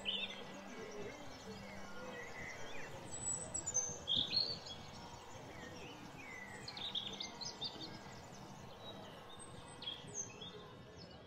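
Small songbirds chirping and singing in short, scattered calls, the loudest a few seconds in, over a steady outdoor background hiss.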